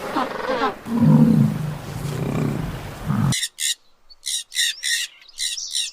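A large animal's low, rough growling roar, then an abrupt cut to a small bird chirping in short, quick repeated calls.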